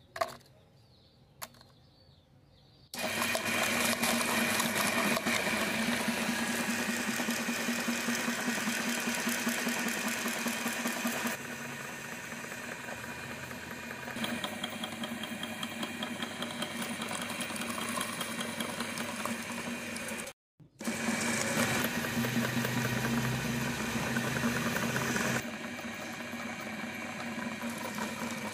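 Electric meat grinder motor starting up about three seconds in and running steadily while it grinds foil-wrapped chocolate eggs. It cuts out for a moment about twenty seconds in and then runs on. Before it starts there are a few light clicks as the eggs drop into the steel hopper.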